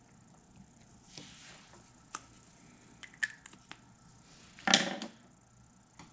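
Hand tools being handled on a wooden workbench: scattered light clicks and ticks, with one louder short knock about three-quarters of the way through.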